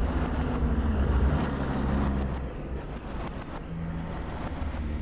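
Steady low rumble of vehicle engines and road noise in heavy traffic, with a few held low tones running through it.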